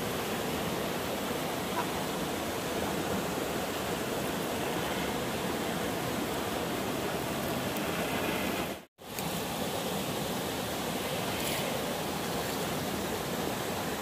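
Steady rush of flowing water, cutting out for an instant about nine seconds in.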